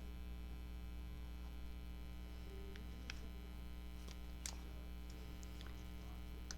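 Steady electrical mains hum, with a few faint ticks and rustles of paper and thread being handled as a needle is passed through a book's spine.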